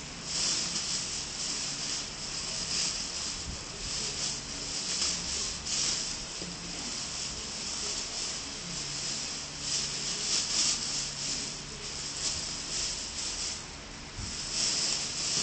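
Clear plastic bag rustling and crinkling in irregular bursts as clothes are stuffed into it and its sides are gripped and pulled.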